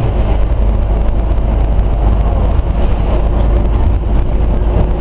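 Scania OmniCity single-deck bus under way, heard from inside the passenger saloon: the diesel engine and drivetrain give a loud, steady low rumble, with road and rattle noise over it.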